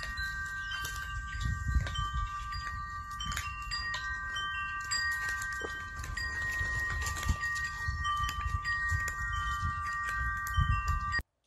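Wind chimes ringing steadily, several long overlapping tones with short higher pings struck now and then, over a fluctuating low rumble and a few small clicks. The sound stops suddenly shortly before the end.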